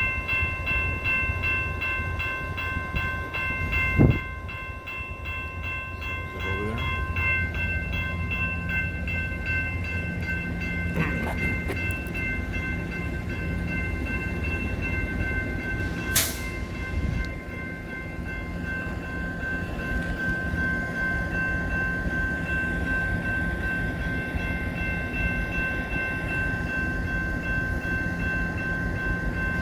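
Grade-crossing warning bell ringing on and on over the low rumble of a BNSF GP60M-3 diesel locomotive drawing slowly closer. There is a sharp knock about four seconds in and another around sixteen seconds.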